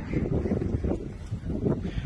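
Wind buffeting a phone microphone: an uneven low rumble that rises and falls.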